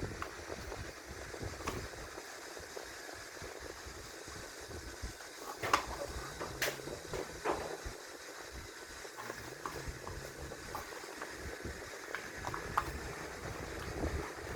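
A few sharp clicks and knocks of hand work on a car door, the loudest about six seconds in, with smaller ticks later, over a steady low background rumble and hiss.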